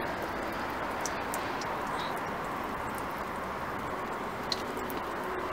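Radiator coolant draining from the opened drain valve in a thin, steady stream, trickling and splattering into the puddle on the asphalt below.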